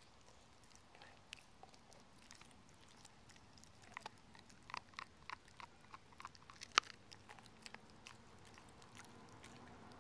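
Dog gnawing a raw beef rib: chewing with sharp clicks and cracks of teeth on bone, sparse at first, then coming thick and fast through the middle, with one louder crack about seven seconds in.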